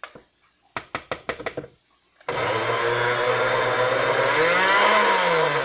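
Countertop blender motor running for about three and a half seconds with the pastry dough clumped and stuck on its blades, so the blades turn without mixing it; its hum wavers up and back down near the end. Before it starts, a quick run of about six clicks.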